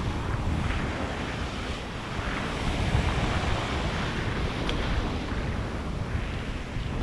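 Ocean surf breaking and washing over jagged coral rock, a steady foaming rush that swells and eases, with wind buffeting the microphone.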